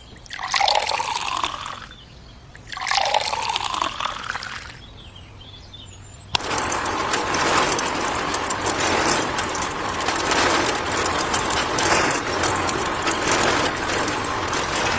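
Liquid pouring: two short splashing pours, then a steady pour for about nine seconds that starts and stops abruptly.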